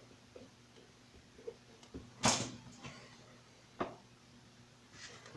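Marker pen writing on paper: a few faint strokes, one louder scratchy stroke about two seconds in, and a sharp click near four seconds.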